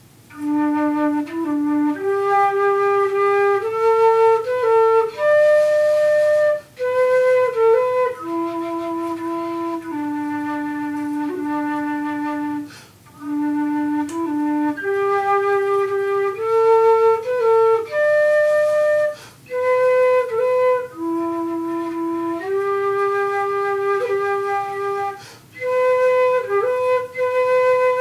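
Keyless six-hole Irish flute of African blackwood playing a slow, simple melody in its lower octave: long held notes that step up and down, broken by short gaps for breath.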